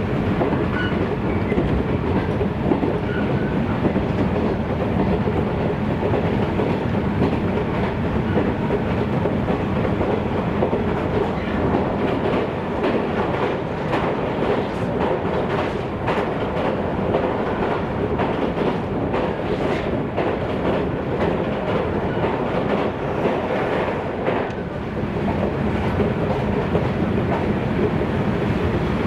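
JNR 113 series electric multiple unit running at speed, heard from inside the carriage: a steady rumble of wheels and bogies on the rails, with wheel clacks over rail joints around the middle.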